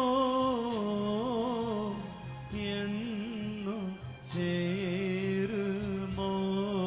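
Music of a Malayalam Christian hymn: long-held, wavering notes, with a brief break about four seconds in before the melody carries on.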